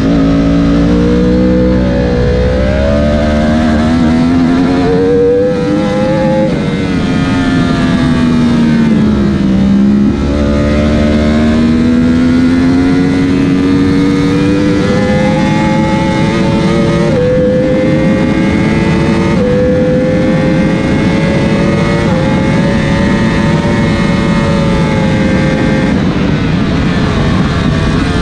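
Onboard sound of a Yamaha superbike's inline-four engine at race pace. The revs climb, drop away for about four seconds off the throttle, then pull hard again, with quick upshifts. Wind noise at over 100 mph sits underneath.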